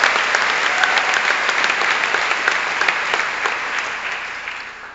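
Audience applauding in a large hall, a dense patter of many hands clapping that thins and dies away near the end.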